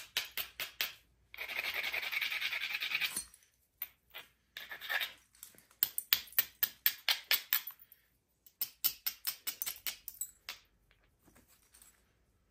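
Pieces of chert knocking and rubbing against each other in the hands: runs of quick, light stone-on-stone clicks, with a scraping stretch about a second in.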